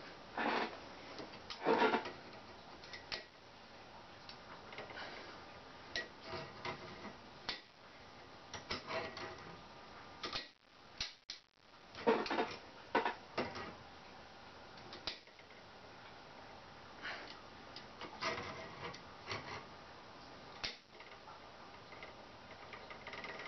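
Locking pliers clamping onto a crosscut saw's teeth one at a time and bending each slightly to set its offset: irregular metallic clicks and taps, a few of them louder knocks.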